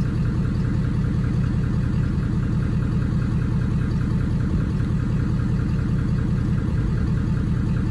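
Ford Super Duty's Power Stroke diesel engine idling steadily, with an even, regular clatter.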